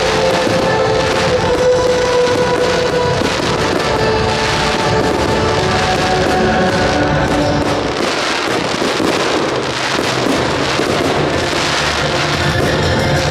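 Music playing loudly and steadily, with the bangs and crackle of aerial firework shells bursting through it.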